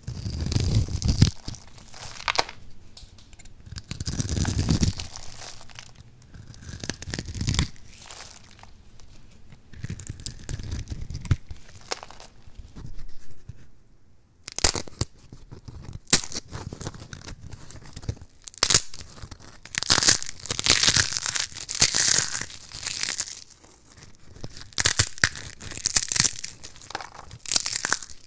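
A knife cutting through a grid-scored bar of soap, the small soap cubes crunching and crumbling off in bursts. From about halfway on, a gold-coated soap block is squeezed and broken apart by hand, its crust crackling and snapping in dense, crisp bursts.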